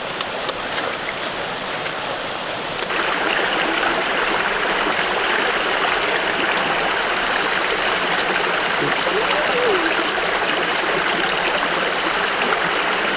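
Steady rush of flowing stream water, which gets louder about three seconds in. There are a few sharp clicks near the start.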